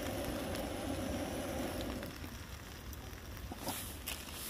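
Gas camping stove burner hissing under a pan of chilli and rice, which sizzles; the burner's hiss stops about two seconds in as the pan comes off the heat. The food keeps sizzling more quietly, with a few small clicks near the end.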